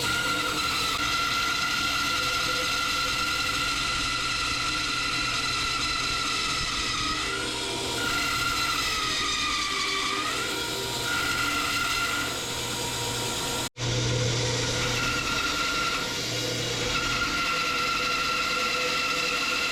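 Delta 28-206 14-inch bandsaw running through a maple block on a 1/2-inch, 3 TPI Powertec blade, which the owner thinks is dull and which cuts very slowly. A steady whine over a low motor hum, whose pitch sags and recovers about halfway through as the blade loads up in the cut.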